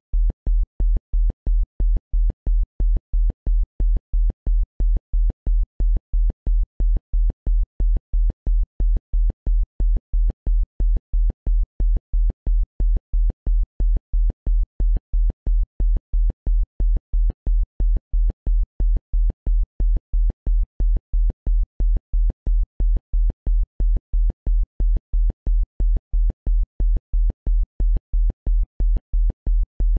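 Isochronic tone: a single deep synthesized tone switching sharply on and off in an even beat, about two pulses a second, with a faint click at each pulse edge.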